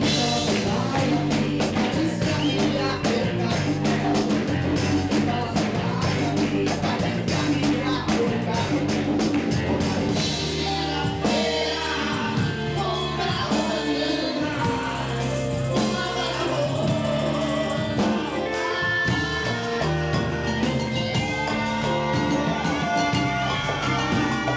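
Live band music: keyboard over a steady beat, with a lead vocalist singing a strong melody that stands out from about ten seconds in.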